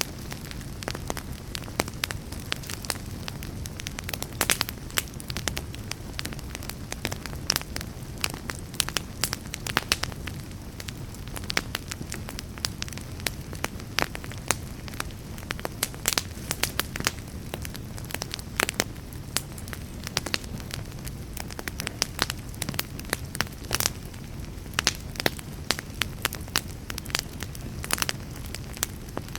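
Wood fire burning in a fireplace: frequent irregular sharp crackles and pops from the burning logs over a steady low rumble of the flames.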